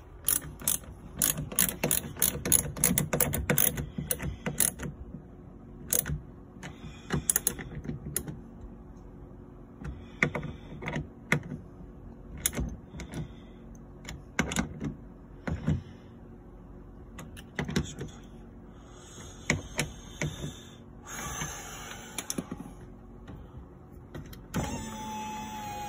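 Mechanical clicks and knocks from work on a Mazda RX-8's power window motor and regulator inside the open door: a fast run of clicks in the first few seconds, then scattered knocks and rattles. Near the end the power window motor starts running with a steady whir.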